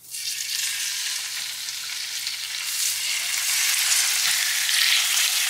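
Tilapia fillets sizzling in hot butter and olive oil in a stainless steel frying pan. The sizzle grows louder about halfway through as the fillets go into the fat.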